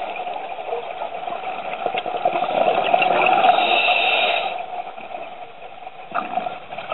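A scuba diver breathing through a regulator, heard underwater through the camera housing. A hissing breath swells about three seconds in and fades, with bubbling sounds near the end.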